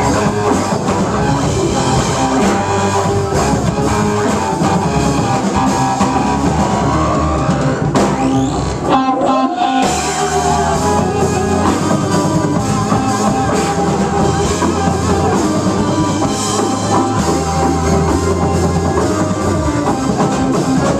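Live band playing: drum kit, electric guitar, bass guitar and Hammond XK-1 keyboard. About nine seconds in the low end drops out for roughly a second while a single note slides up and back down, then the full band comes back in.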